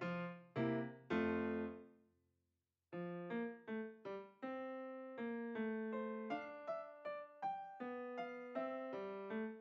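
Background piano music: a phrase fades to silence about two seconds in, then a new run of evenly paced piano notes begins just under a second later.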